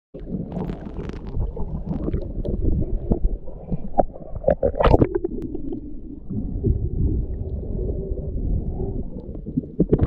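Underwater ambience picked up by a submerged camera: a steady muffled low rumble of moving water with scattered clicks and crackles, and a louder crackling burst about five seconds in.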